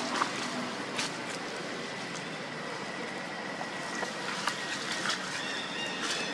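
Steady outdoor background hiss with a few sharp crackles of dry leaves as macaques wrestle and roll on the leaf litter.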